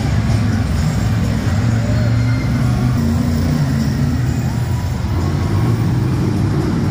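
Loud, steady low rumble of large vehicle engines running, with music playing faintly underneath.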